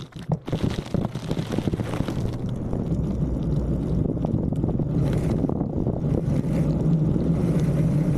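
An engine running steadily, with a few sharp knocks in the first couple of seconds.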